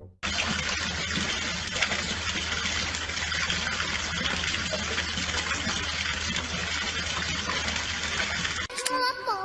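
A steady rushing noise, like running water, with a low hum underneath; it starts abruptly and cuts off near the end.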